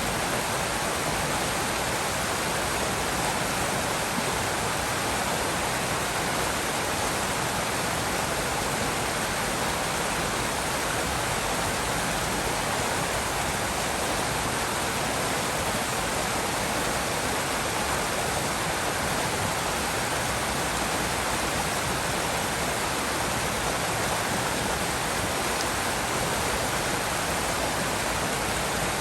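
River water rushing steadily, an even, unbroken sound of flowing water.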